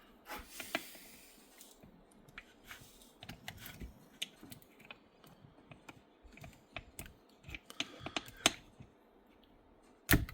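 Small, irregular metallic clicks and scrapes of a tool working a wrist-pin circlip into its groove in a two-stroke chainsaw piston, with a sharper click near the end.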